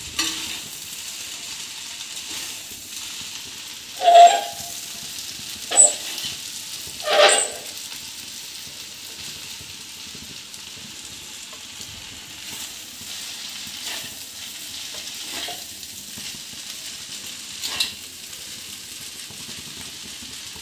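Noodles stir-frying in a kadhai with a steady sizzle, tossed and stirred with metal utensils. The utensils clatter against the pan a few times, loudest about four, six and seven seconds in, and once more near the end.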